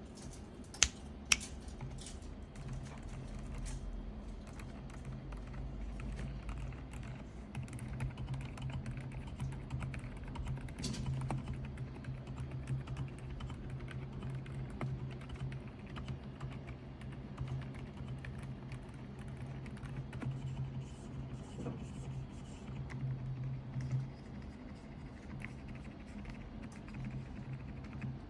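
Mechanical keyboard being typed on: a steady run of key clacks, with two sharper, louder clicks about a second in.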